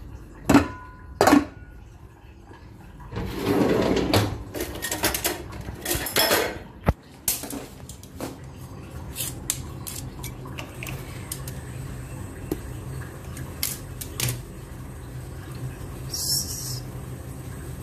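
A frying pan and other metal kitchenware clanking against a steel sink and stovetop: two sharp clanks near the start, the second with a short ringing note, then scattered knocks and a sharp click as the pan is set down. After that comes a steady low hum from the lit gas burner under the pan of water.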